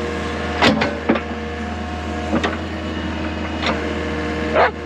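Excavator engine running with a steady hum while its steel bucket digs into the soil, with five sharp clanks and scrapes spread across the few seconds.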